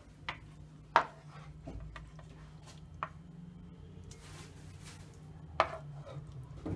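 Wooden spoon stirring a saucy beef stir-fry in a frying pan and knocking against the pan and a plate: a few sharp knocks, the loudest about a second in and another near the end, with a brief scrape between them.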